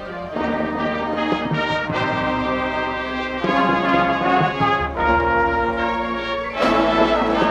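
High school marching band's brass section playing sustained chords, stepping louder about half a second in and swelling again near the end.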